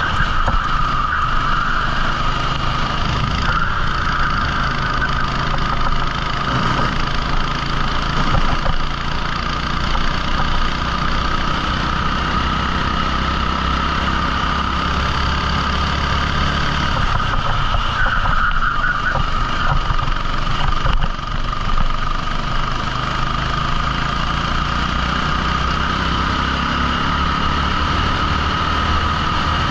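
A 14 hp rental kart engine running steadily during a race, its pitch changing little, with a brief drop in loudness about 21 seconds in.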